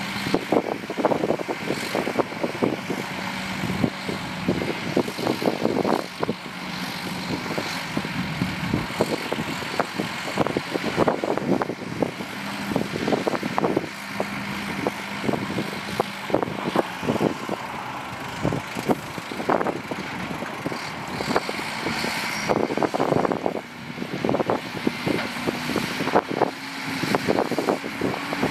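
Dump truck engine running with its bed tipped up, while the load of soil and rocks slides out with irregular clattering knocks and thuds. The engine note rises a little near the end.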